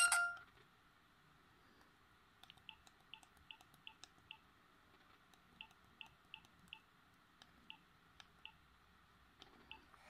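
A Siemens SF65 clamshell phone's ringtone cuts off about half a second in. Then comes a string of faint, short key beeps and clicks as the phone's navigation key is pressed over and over, in quick runs of two to six with short pauses.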